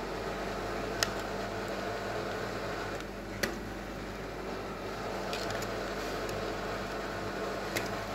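Steady hum of kitchen ventilation, with three light clicks of a metal spoon against the dishes: about a second in, about three and a half seconds in, and near the end.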